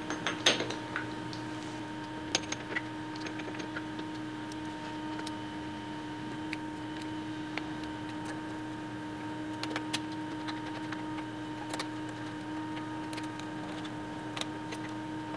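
Scattered small metal clicks and taps as titanium parts are seated in a steel machining fixture and the hold-down screws are turned with a hex key, the loudest click about half a second in. Under them runs a steady hum with a constant tone.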